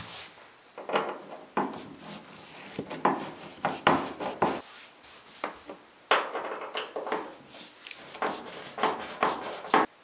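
Screwdriver turning out the sheet-metal screws at the bottom of a gas dryer's front cover: a series of irregular scraping, grinding strokes as the screws turn in the metal.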